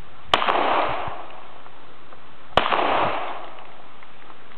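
Two single shots from a Glock 19 9mm pistol, a little over two seconds apart, each followed by an echo that dies away over about a second.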